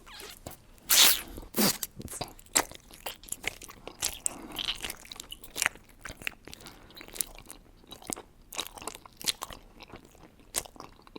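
Close-miked biting and chewing of an eyeball gummy, with a loud crunch as the round gummy is bitten open about a second in. Irregular wet clicks and squishes follow as it is chewed.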